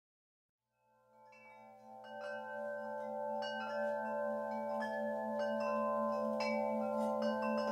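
Near silence for about a second and a half, then soundtrack music fades in: chime-like bell tones struck one after another and left ringing over a steady low drone.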